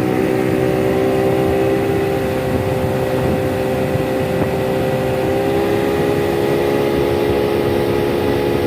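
Small boat's outboard motor running steadily under way, its pitch holding almost level.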